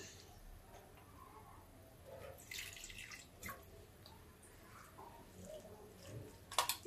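Water being added to a bowl of gram-flour batter: faint trickling and dripping, with a brief splash of pouring about two and a half seconds in and a few light knocks of the bowl near the end.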